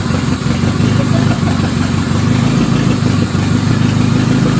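Toyota Camry derby car's engine idling with a steady low drone.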